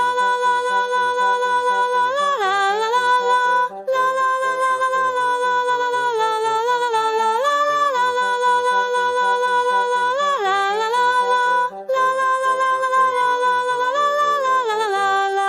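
Children's song outro: a voice sings a wordless "la la la" melody of held notes and gliding turns over a light backing with a steady bass pulse. The music breaks off briefly twice.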